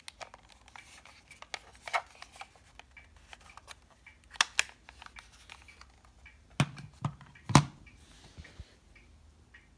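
Handling noise from a small plastic handheld TV: scattered light clicks, a sharp click about 2 seconds in and a quick pair of clicks near the middle. Then come three knocks with a dull thump as the set is put down on a wooden table, the last knock the loudest.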